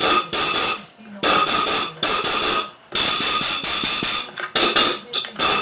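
Compressed-air blow gun firing about six loud hissing blasts of a second or less each, with short gaps between, blowing bits of old, broken-down fuel line out of the trimmer part.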